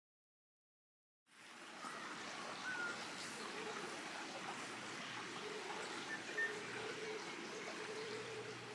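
Silence for about the first second, then a mountain stream running steadily, with a few faint bird chirps.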